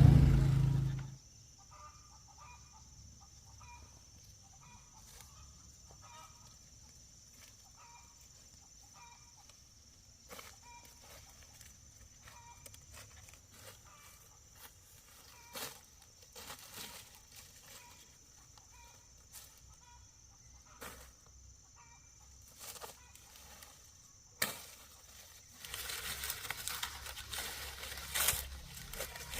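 Chickens clucking faintly, short calls repeating, with scattered light clicks. Near the end a louder rustling, crunching noise starts.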